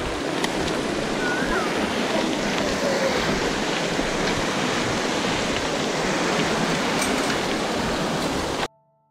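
Steady rushing noise that cuts off abruptly near the end.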